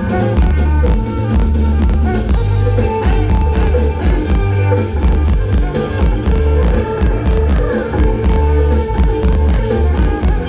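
Loud amplified kantrum band music with a heavy bass beat.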